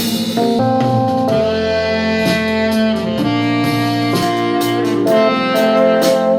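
Instrumental music with held, sustained melody notes, played back through a small portable Bluetooth speaker and picked up by a microphone.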